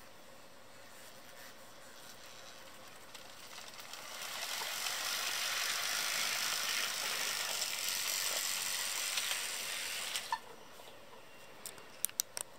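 A 1984 Rivarossi HO-scale Big Boy model steam locomotive runs along its track on a test run after restoration, with a steady rattling whir from its motor, gearing and wheels. The sound builds up over the first few seconds and stops abruptly about two seconds before the end. A few sharp clicks follow.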